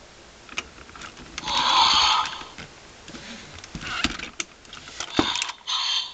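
Imaginext Eagle Talon Castle Dragon toy: plastic clicks and clacks from its handle-worked neck mechanism, with a loud electronic sound effect from the toy's small speaker about a second and a half in, and shorter ones near the end.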